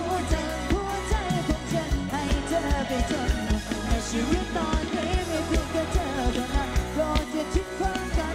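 Thai live band playing, with a singing voice carrying the melody over a steady drum beat.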